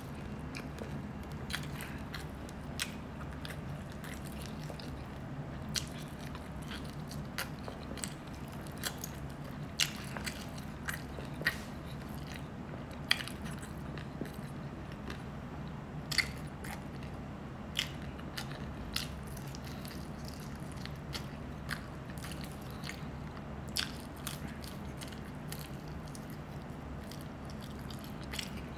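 Close-miked eating: a person biting and chewing food, with irregular sharp crunches and mouth clicks.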